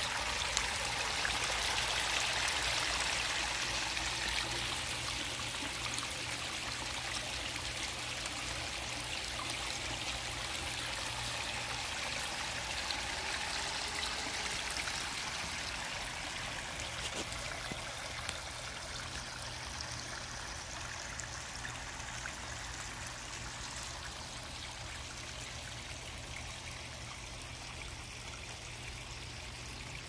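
Backyard pondless waterfall: water spilling over stone ledges and trickling through river rock into a gravel basin, a steady splashing that slowly grows fainter toward the end.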